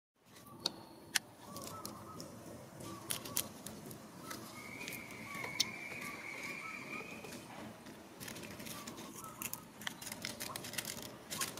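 Scattered sharp clicks and rustles, as of dry leaf litter, with faint short chirping calls throughout and one steady high note lasting about three seconds midway.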